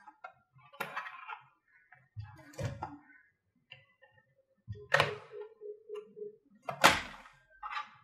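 Plastic clicks and knocks as the bottom access panel of an HP Pavilion DV6 laptop is unlatched and pried off with a screwdriver. There are four sharp knocks, the loudest near the end, and a short rattling scrape just after the middle.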